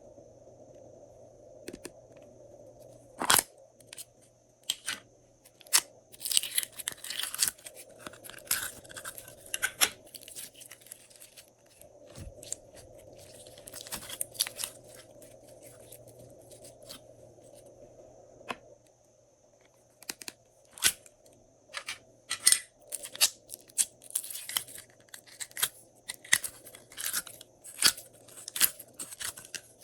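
Glossy slime being squeezed and stretched by hand, giving irregular sharp clicks, sticky pops and short crackling bursts, busiest in two stretches.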